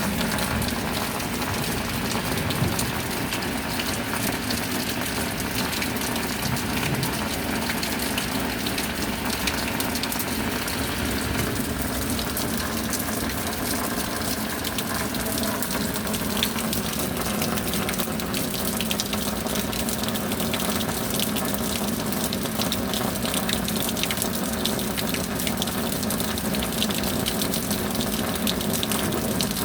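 Steady rain with water running and gushing, an even rushing hiss that holds level throughout.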